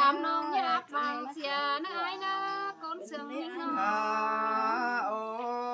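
A woman singing a traditional Tai folk song, her voice gliding through ornamented phrases with brief breaths, then holding long steady notes in the second half.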